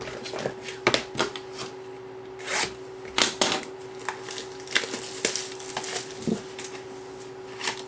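Trading cards and card packs being handled on a table: a string of light clicks and taps with a few short rustles and swishes as cards are slid, stacked and set down. A faint steady hum runs underneath.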